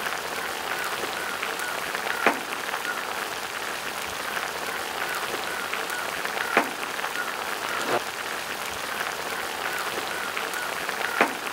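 Duck broth in a metal pot at a hard rolling boil over a gas burner: a steady bubbling, crackling hiss, with a few sharp pops along the way.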